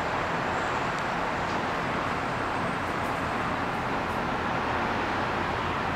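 Steady, even roar of distant city traffic with no distinct events.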